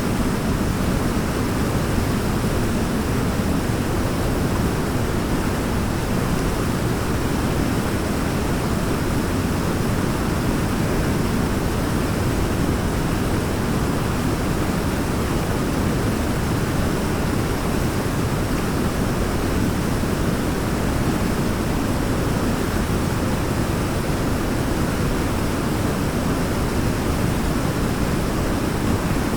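Waterfall, water falling and crashing in a steady, even rush that stays constant throughout.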